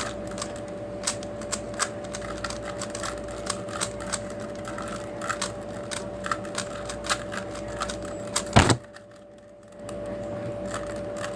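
Rapid, irregular clicking of 3x3 puzzle cube layers being turned during a solve, with one loud knock about eight and a half seconds in. A steady hum runs underneath.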